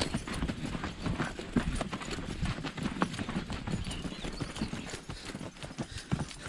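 A horse's hooves clip-clopping at a walk on a dry dirt and rock trail, heard from the saddle as a run of irregular knocks.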